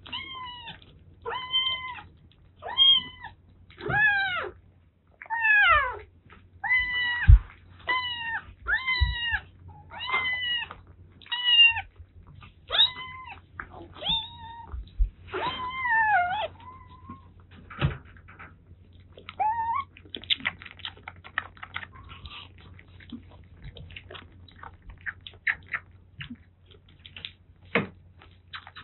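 Kitten meowing over and over, about one arching mew a second through the first half, then a few more spaced out. After that come rapid small clicks and smacks of kittens eating soft weaning food from ceramic bowls.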